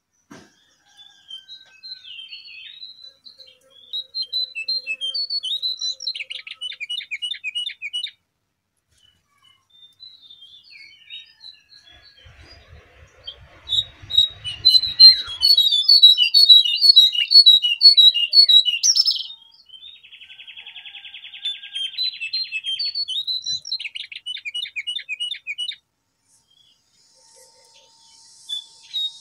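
Recorded song of the jongkangan (cingcoang coklat) songbird, played as a masteran. It is several phrases of high chirps and fast trills separated by short pauses, with the loudest, densest phrase in the middle. A short buzzy trill follows a little lower in pitch.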